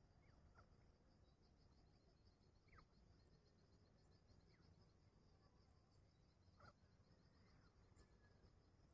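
Near silence: faint field ambience with a steady high insect trill and a few faint, short falling bird chirps.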